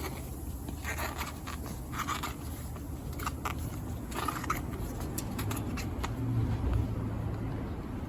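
A skinny folding road tire being worked off its rim by hand, the bead rubbing and clicking against the rim in short irregular scrapes; the tire is a very tight fit. A steady low hum runs underneath.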